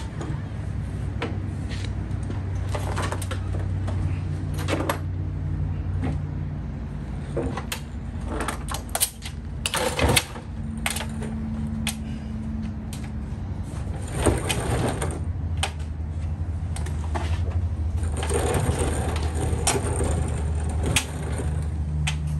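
Steel Craftsman rolling tool cabinet being lifted out of a vehicle's cargo area and set down on its casters, with scattered metal clanks, knocks and rattles of the cabinet and its contents; the loudest knock comes about ten seconds in. A steady low hum runs underneath.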